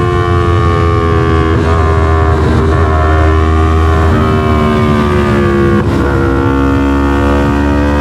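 Yamaha MT-03's 321 cc parallel-twin engine running through an SC-Project full exhaust as the bike rides, with a few sudden steps in pitch like gear changes.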